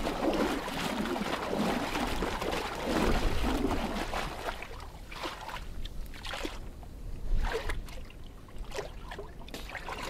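Water sloshing and gurgling in an open breathing hole in sea ice, busiest in the first few seconds. After that it turns into scattered small splashes and clicks of slush ice.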